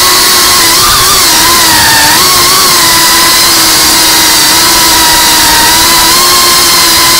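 The brushless motors and propellers of a 5-inch FPV quadcopter whining loudly, heard from the drone's own camera, over a strong hiss of rushing air. The pitch dips and wobbles with throttle changes about one to two and a half seconds in, then holds steady.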